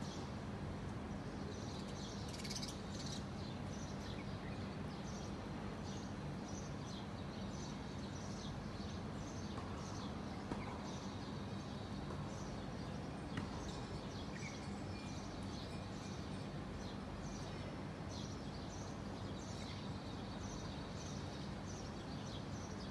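Small birds chirping: many short, high calls scattered throughout, over a steady low hum of background noise.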